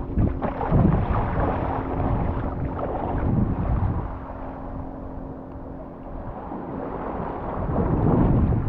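Sea-Doo FishPro jet ski running on the water, a steady engine hum under the rush of water and wind buffeting the microphone. It goes quieter for a few seconds in the middle and louder again near the end.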